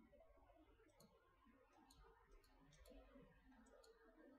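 Near silence with a handful of faint, scattered computer-mouse clicks.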